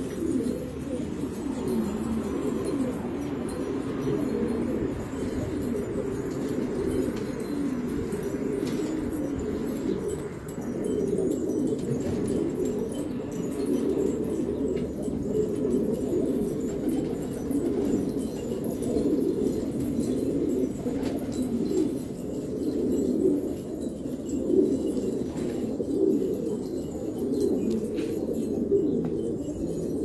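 A flock of domestic fancy pigeons cooing continuously, many low coos overlapping into a steady chorus.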